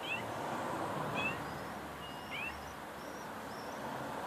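Short high-pitched animal calls repeating about once a second, with fainter wavering higher calls between them, over a steady background hiss.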